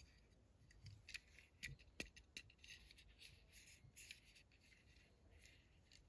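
Faint light clicks and rubbing of fingers handling a small Hot Wheels die-cast toy car, with a sharper click about two seconds in.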